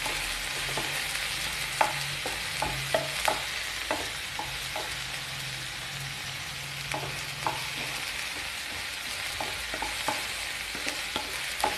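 Chopped onions and curry leaves sizzling in oil in a kadai as they are sautéed to soften, stirred with a wooden spatula that scrapes and taps against the pan at irregular moments.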